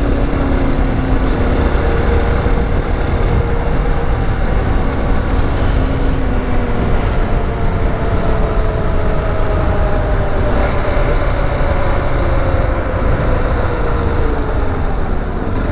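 Motorcycle running steadily at road speed, with heavy wind rumble on the microphone. The engine note eases slowly downward in the second half as the bike slows.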